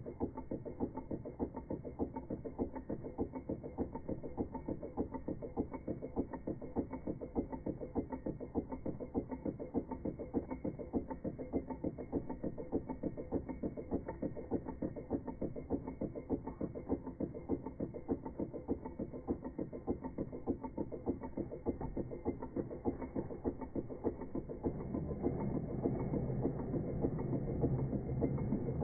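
Wiggers StiWi 2 model Stirling engine running, its crank and linkage clicking in a rapid, even rhythm as the flywheel turns. The sound grows louder and fuller near the end.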